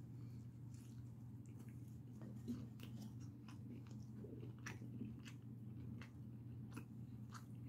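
Close-up chewing of a sausage, egg and cheese biscuit sandwich just bitten into: faint, irregular mouth clicks over a low steady hum.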